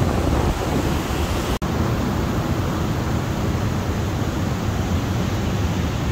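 Ocean surf washing over a rock shelf, a steady rushing noise, with wind buffeting the phone's microphone and adding a low rumble. The sound drops out for an instant about a second and a half in.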